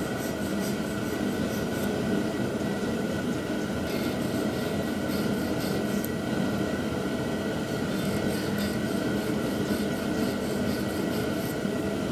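Fine honing stone rubbed back and forth across the filed end gap of a moly piston ring to deburr it, a faint scratching in bouts of quick short strokes. A shop heater whirs steadily underneath.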